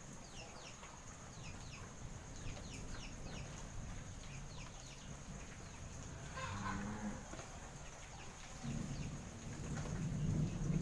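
Cow mooing: a short low call about two-thirds of the way through, then a longer, louder one near the end. Behind it are repeated short falling chirps and a steady high-pitched whine.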